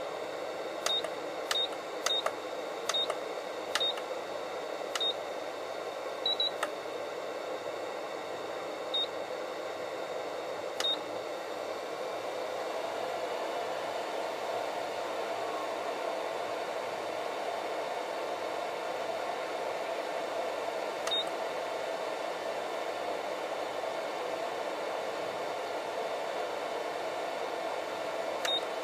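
Balance charger's keypad beeps: a run of short, high beeps, one per button press, over the first eleven seconds, then single beeps near the middle and near the end. From about twelve seconds in, a steady fan-like hiss grows louder as the charger starts charging a LiPo pack at high current.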